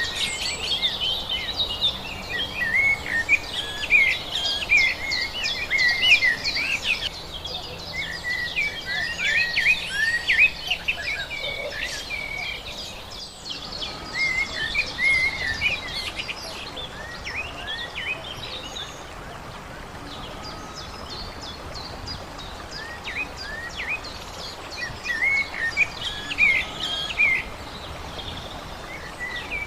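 Songbirds chirping and singing in quick runs of short, curved notes over a steady background hiss. The birds are busiest in the first half, fall nearly quiet for a few seconds past the middle, then pick up again near the end.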